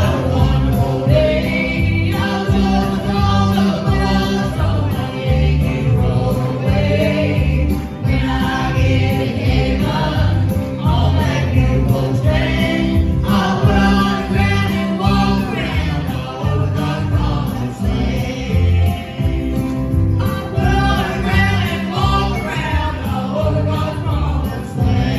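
Southern gospel group singing in harmony with musical accompaniment and a steady bass line.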